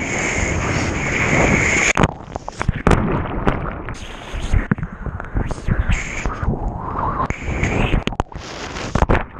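Seawater churning and splashing close against the camera, with uneven gusts and sudden dropouts. Near the end a surfboard cuts across a wave face and throws spray.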